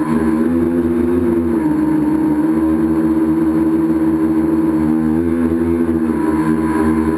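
Tricopter's electric motors and propellers buzzing loudly up close, a steady multi-tone drone whose pitch dips and rises a little as the throttle changes.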